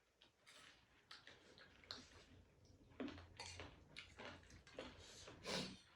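Faint eating sounds: scattered short mouth clicks and smacks of chewing, with a couple of louder brief noises about three seconds in and near the end.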